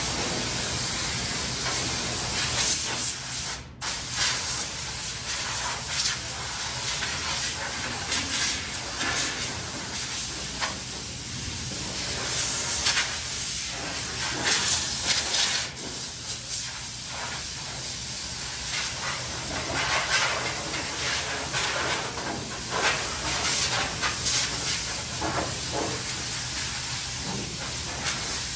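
Compressed-air blow gun hissing as it blows dust off a primed truck cab's interior, the stream swelling and dipping as the trigger is worked, with a brief cut about four seconds in.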